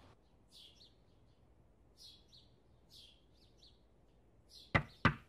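Small birds chirping, a short twittering call about once a second, then two sharp knocks in quick succession near the end, the loudest sounds here.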